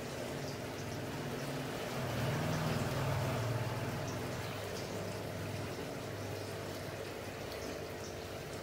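Aquarium filter running: a steady trickle and bubble of circulating water over a low pump hum. A low rumble swells for a second or two about two seconds in.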